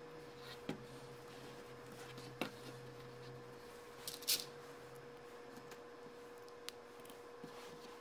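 Faint clicks and clatter of plastic K'nex pieces being handled, with a louder rattle about four seconds in, over a steady faint hum.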